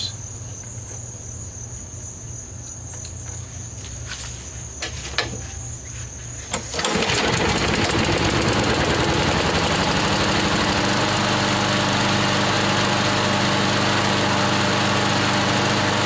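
Craftsman lawn mower's Briggs & Stratton flathead engine, cold, pull-started: it catches about seven seconds in and then runs steadily.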